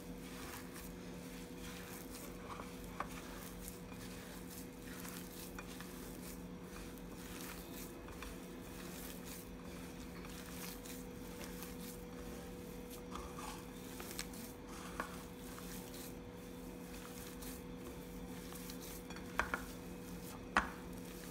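Hands kneading a mashed potato, corn and breadcrumb mixture in a ceramic bowl: faint soft mixing with a few light knocks against the bowl, over a steady hum.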